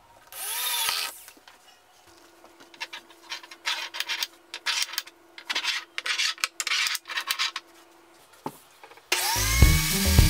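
Wood being worked by hand in a run of short rubbing strokes, about two a second. Near the end a power tool starts up loudly, its whine rising and then holding steady.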